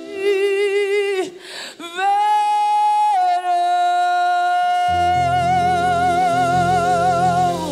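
A woman singing a wordless worship melody into a microphone with strong vibrato, ending on one long held note. A low sustained accompaniment comes in under the note about five seconds in.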